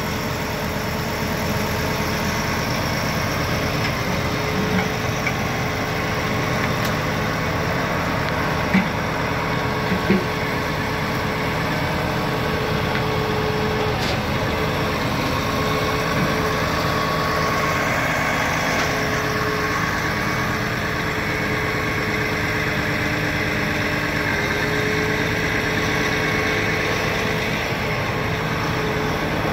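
Diesel engine idling steadily, with a couple of short knocks around nine and ten seconds in.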